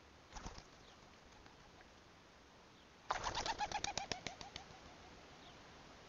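Pigeons' wings flapping as the birds take off from a water trough: a brief flutter about half a second in, then a loud, rapid run of wing beats for about a second and a half, a little past the halfway point.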